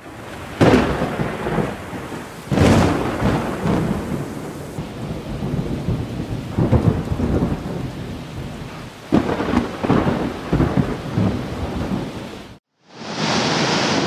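Thunderstorm: rolling thunder over steady rain, with about four loud peals that each break suddenly and fade out in a low rumble. Near the end the storm cuts off and breaking surf takes over.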